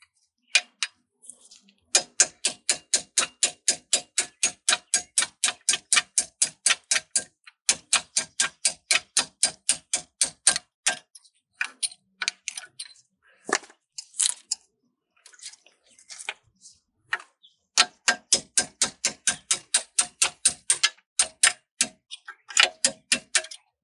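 A hammer tapping quickly on a steel pin punch to drive the pad retaining pin out of a Hellcat's six-piston front brake caliper. The metallic taps come about five a second in long runs, with a sparser, uneven stretch in the middle.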